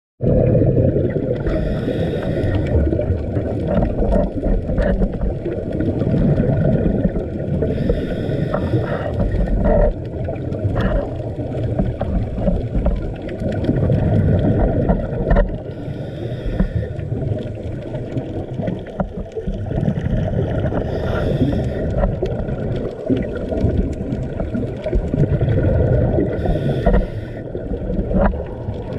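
Underwater sound through a camera housing: a constant muffled rumble of moving water, broken about every five to six seconds by a short hiss of a scuba diver's exhaled regulator bubbles, five times in all, with scattered faint clicks.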